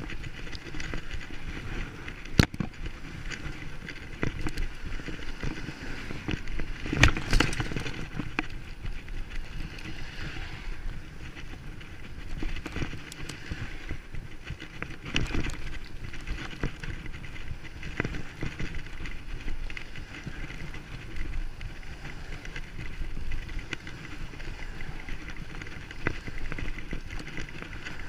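Bicycle being ridden over rough ground: a steady low rumble with frequent small rattles. Sharp knocks come about two seconds in, around seven seconds (the loudest), and about fifteen seconds in.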